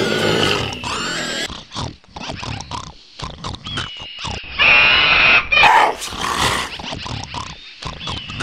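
A dog chewing and tugging at a stuffed plush toy, making low throaty animal noises, with many short, sharp chewing noises. A loud, high, steady-pitched squeal comes about halfway through.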